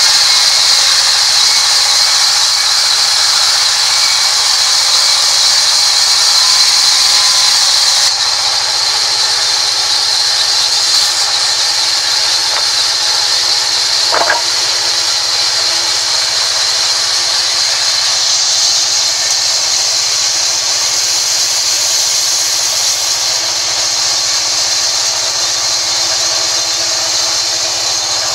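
Sawmill band saw running and cutting through mahogany, a steady high hiss over the machine's hum. It drops a little in level about eight seconds in, and a brief sharp knock comes about halfway through.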